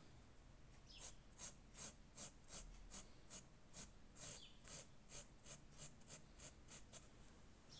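Textile marker tip scratching across printed fabric in quick short strokes, about three a second, as the print is coloured in. It starts about a second in.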